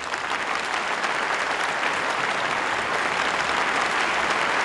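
Audience applauding: a dense, steady wash of many people clapping, swelling a little at the start.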